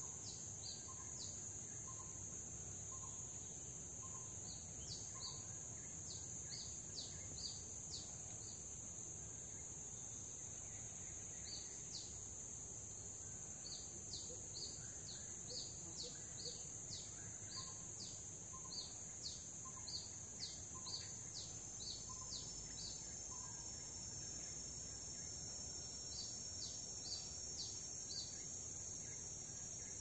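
Tropical rainforest ambience: a steady high-pitched insect drone, with a bird giving runs of short, quick, high notes that fall in pitch, and a lower call repeated at even intervals.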